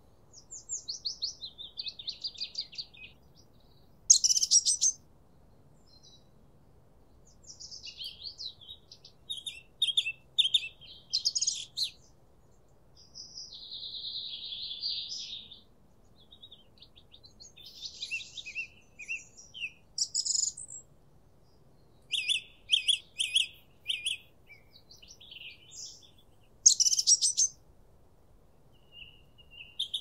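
Songbirds singing: a string of short, high chirping and trilling phrases of rapid notes, with pauses of a second or two between them. A few phrases are much louder and sharper than the rest.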